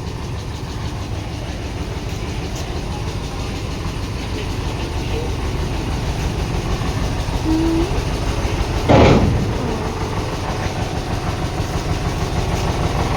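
Steady low rumble of a heavy vehicle running, with one short, loud burst of noise about nine seconds in.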